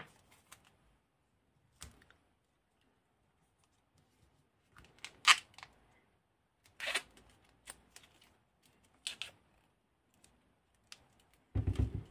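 Black insulating tape being pulled off the roll in several short tearing pulls and wrapped around a lithium-ion battery pack's cell holders, with small handling knocks between pulls and a louder bout of handling noise near the end.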